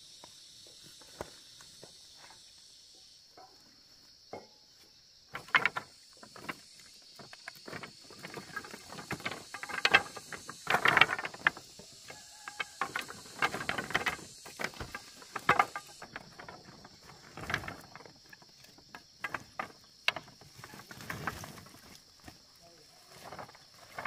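Dry bamboo poles clattering and knocking against one another as they are pulled from a pile and stacked, in irregular bursts of hollow wooden knocks. A steady high insect drone runs behind and fades about two-thirds of the way through.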